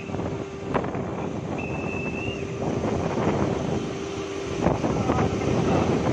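Wind buffeting the microphone, with a faint steady hum underneath and a brief high steady tone about two seconds in.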